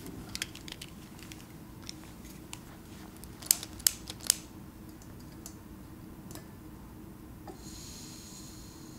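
A long-reach lighter's trigger clicked: a few light clicks at first, then three sharp clicks in quick succession near the middle. Near the end a faint hiss of gas begins.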